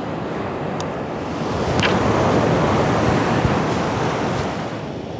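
Ocean surf breaking on a sandy beach: a wash of noise that swells in the middle and eases toward the end.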